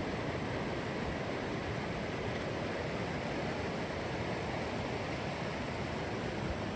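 Small river flowing: a steady, even rush of water.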